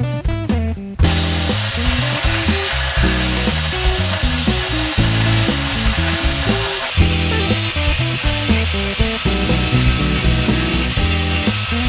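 Background music with a stepping melody, over the steady noise of an electric drill used as a mini lathe spinning a wood piece while it is cut or sanded. The drill noise is missing at the very start and comes in about a second in.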